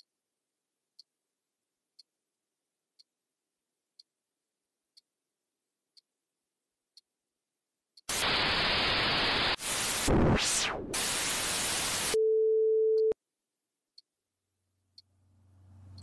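Edited-in sound effects: faint ticks about once a second, then about eight seconds in a loud burst of TV-style static with a glitchy sweep through it, cut off by one steady beep lasting about a second. The ticks resume and a low hum swells in near the end.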